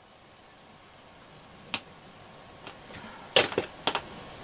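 Small sharp clicks and taps of a miniature metal IF transformer can being handled on the bench: one click nearly two seconds in, then a quick cluster of clicks near the end.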